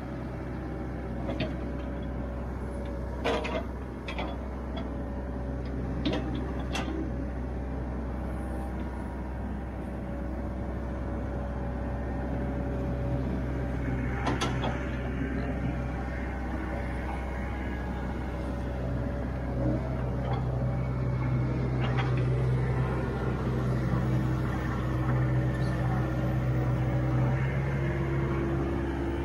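John Deere 85G excavator's diesel engine running steadily under digging load, with a whine from the hydraulics, as the bucket works the mud. Several sharp clanks come from the bucket and boom linkage, and the engine gets louder near the end.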